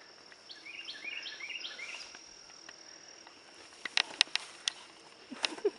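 Steady high-pitched drone of insects, with a run of about six quick rising chirps in the first two seconds. Around four seconds in come a few sharp clicks, the loudest sounds here, and a couple more near the end.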